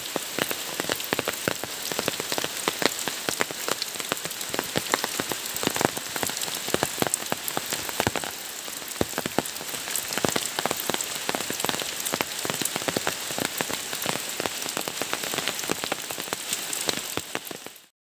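Steady rain falling on bamboo foliage: a dense patter of many sharp individual drops over an even hiss.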